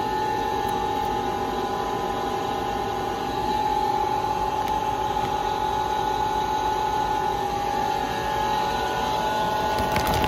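A small motor running steadily, giving a constant hum with a high whine. A few soft knocks come near the end.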